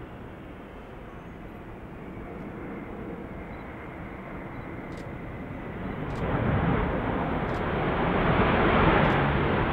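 Airbus A380 airliner rolling out on the runway just after touchdown: a steady jet-engine rumble that builds and swells sharply louder about six seconds in.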